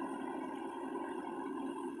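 Heavy tow truck's diesel engine running steadily at low revs during a recovery.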